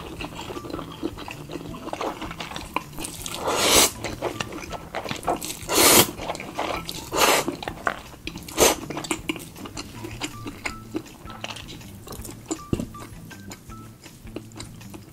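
Samyang spicy instant noodles being slurped and chewed close to the microphone: four long, loud slurps in the first nine seconds, with wet chewing between and after them. Soft background music runs underneath.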